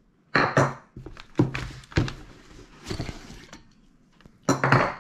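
Shoe trees being pulled out of leather work boots and the boots moved about on kraft paper: a few short rustling scrapes, about half a second in and again near the end, with a couple of sharp knocks in between.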